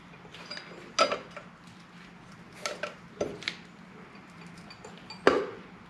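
Steel screwdriver tips clinking and scraping against a motorcycle wheel hub while prying out the dust cap: a handful of sharp metallic clinks, the loudest about a second in and near the end.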